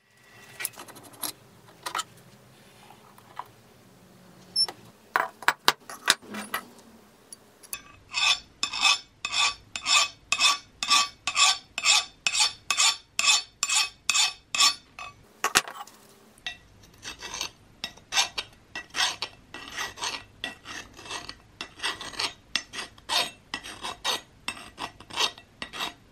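A steel hand file rasped back and forth across the face of an old flat file in quick, regular strokes, about two to three a second. It starts about eight seconds in, after a few scattered clicks and scrapes.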